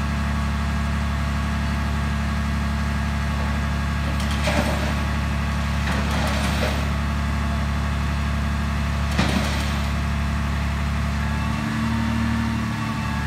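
Flatbed tow truck's engine idling steadily with a low hum, and a few short bursts of noise over it; near the end the engine note shifts briefly.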